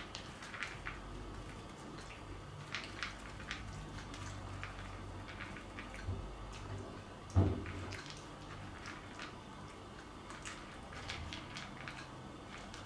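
Yorkshire terrier puppy eating dry kibble from a bowl: scattered small crunches and clicks of kibble. A single thump about seven seconds in.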